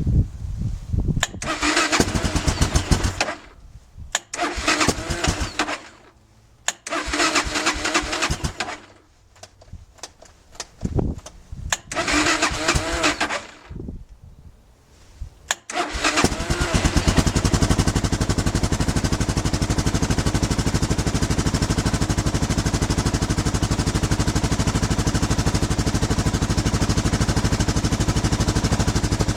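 Suzuki DR 650 single-cylinder engine being cranked on its electric starter in four short bursts of about two seconds each. It catches about sixteen seconds in and then idles steadily. This is the first start on freshly replaced ignition coils.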